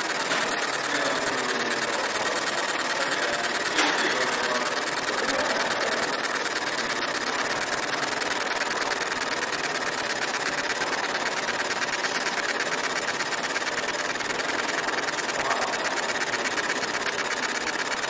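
Fiber laser marking machine engraving an MDF bowl: a steady mechanical buzz with a fast, even flutter.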